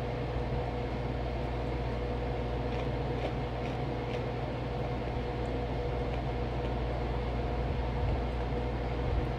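A steady low mechanical hum with a steady tone in it. A few faint crisp crunches of chalky cornstarch chunks being chewed come about three to four seconds in.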